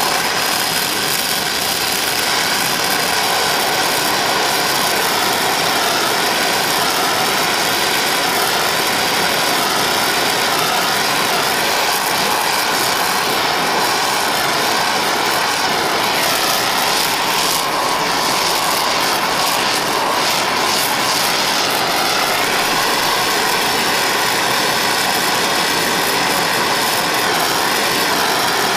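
Oxy-fuel torch flame hissing steadily while bronze-brazing a cast iron part.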